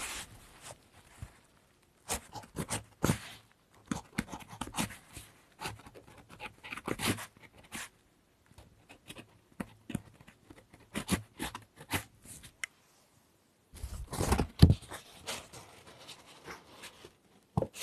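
Writing on freshly made handmade paper: irregular short scratching strokes with brief pauses, and a louder burst of rustling and scratching about fourteen seconds in.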